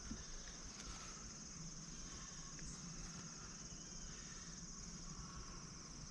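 Insects chirping in a steady, high-pitched chorus.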